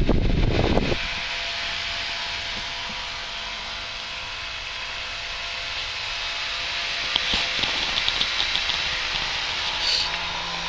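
Small electric fan running steadily, a constant airy hiss with a faint hum. It opens with a loud low rumble that cuts off suddenly about a second in, and a few light clicks come about three-quarters of the way through.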